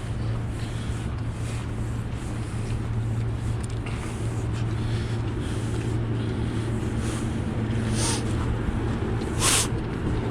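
City street traffic: a steady low hum of vehicle engines under road noise, with a short sharp hiss about nine and a half seconds in.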